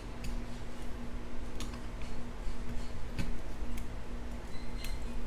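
Gloved hands opening the plastic cap of a gallon jug of muriatic acid: a handful of sharp plastic clicks, over the steady low hum of a shop fan.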